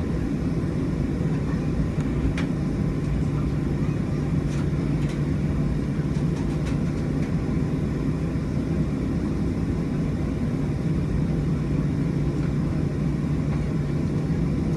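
Boeing 737 jet engines heard from inside the passenger cabin as a steady, even drone with a low hum. A few faint clicks from the cabin.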